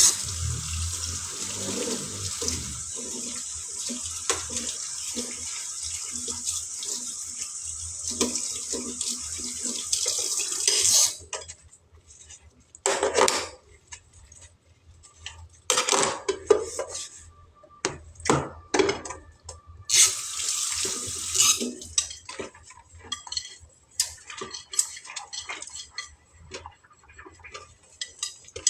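A kitchen tap runs into a sink for about eleven seconds, then stops. Dishes and utensils clink and knock after that, and the tap runs again briefly midway.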